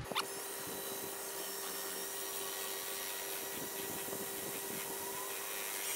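Electric drill running steadily, spinning a bent coat-hanger mixer through a can of thick, clumped paint to break it up.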